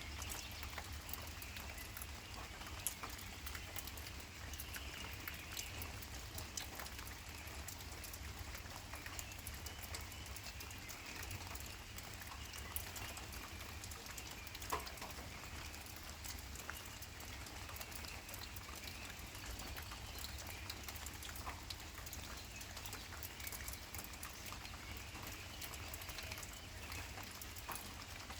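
Outdoor nature ambience: a steady low rumble and hiss with faint bird calls, and scattered light ticks and taps, a few of them sharper knocks.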